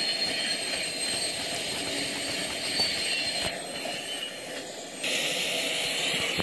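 Steady rumble of a passing train from a live railcam feed, played through a tablet's small speaker; the sound shifts abruptly about five seconds in as the feed changes.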